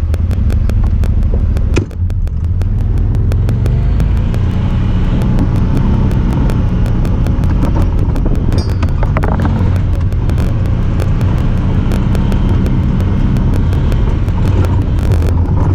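Honda Talon 1000R side-by-side's 999 cc parallel-twin engine running steadily under way, with a fast run of thin clicks that comes from the camera, not the vehicle. The engine sound dips briefly about two seconds in.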